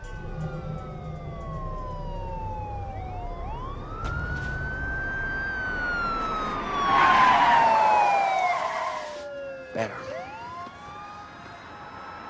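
Several police car sirens wailing at once, each rising and falling slowly, over the low rumble of vehicle engines. A loud rushing hiss comes in the middle and stops abruptly, and a single sharp bang follows a little before the end.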